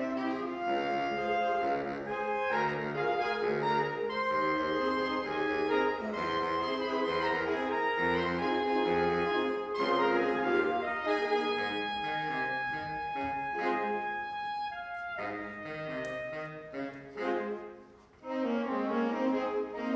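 Saxophone ensemble, from alto to baritone saxophones, playing held chords under a moving melody. About three quarters of the way through the notes turn short and detached, then break off briefly before a full chord comes back in.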